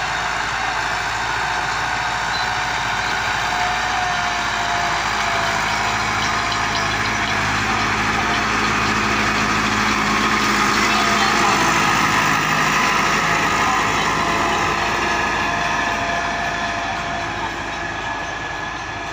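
Massey Ferguson 385 tractor's diesel engine running under load as it pulls a tine cultivator through ploughed soil. It grows louder as the tractor passes close about ten seconds in, then fades as it moves away.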